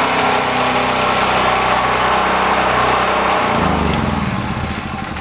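DuroMax 5500E portable generator's single-cylinder gasoline engine running steadily, then shut off about three and a half seconds in and winding down, its pitch falling as it coasts to a stop.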